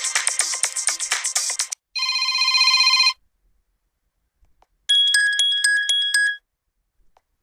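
Built-in ringtone and notification sounds of a Vsmart Live smartphone played one after another. The end of a busy musical tone cuts off about two seconds in. It is followed by a steady chime of about a second, and after a short gap by a rapidly pulsing beep of about a second and a half.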